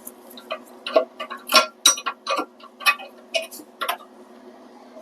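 Irregular sharp clicks and clacks of small hard parts being handled: the broken toilet flush lever, its nut and washer being taken off the tank. The clicks bunch up between about one and four seconds in.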